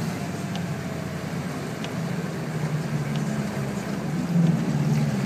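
Frontera SUV's engine running while driving through deep floodwater, heard from inside the cabin, with water rushing against the body. Engine and water noise grow louder from about four seconds in, as a wave of floodwater surges over the bonnet.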